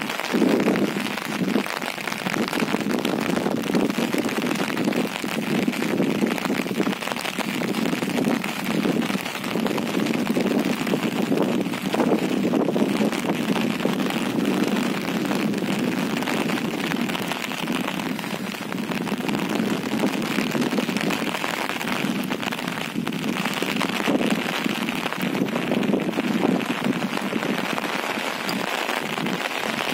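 Steady rain falling, a dense, even patter of drops that keeps up without a break.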